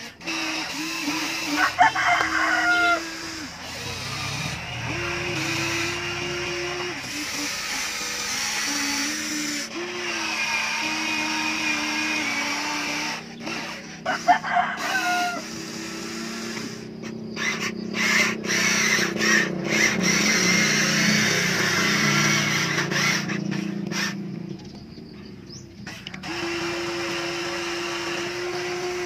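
Remote-control toy excavator's electric motors whining in steady stretches that change pitch as the boom and bucket move. A rooster crows twice over it, about two seconds in and again about fourteen seconds in.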